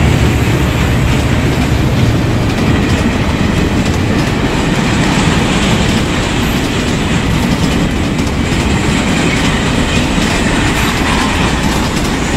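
Container freight train of well cars passing close by at speed: a steady, loud rumble and clatter of steel wheels on the rails.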